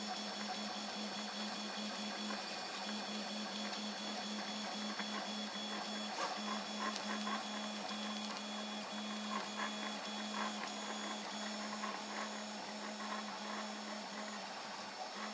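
Prusa i3 3D printer printing at 85 mm/s: the stepper motors whir in a low tone that breaks off and restarts about once a second as the print head changes moves, over a steady high hum, with scattered light ticks from about halfway through.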